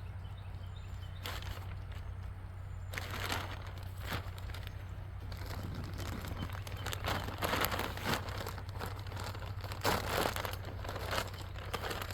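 Plastic bag of cactus-and-citrus potting soil crinkling as soil is poured and worked into a planter pot: irregular rustles and scrapes that grow busier about three seconds in, over a steady low hum.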